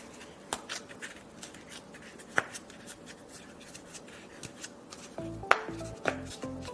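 Scattered sharp clicks and snips of hand craft work on EVA foam and cardboard, over background music that comes in louder with a bass line near the end.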